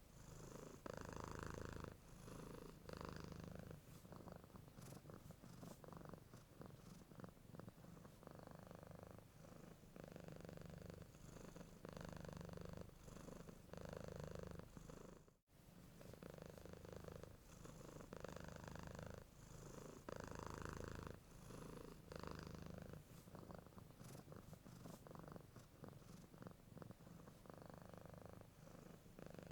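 Domestic cat purring, quiet and continuous, the purr swelling and easing with each breath in and out about every second or so. About halfway through it cuts out for a split second.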